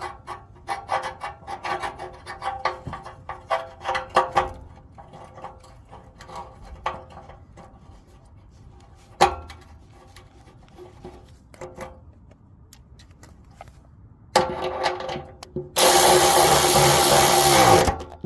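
A string of sharp metallic clicks and knocks from work on the car, then a power tool runs loudly for about two seconds near the end, its pitch falling as it winds down.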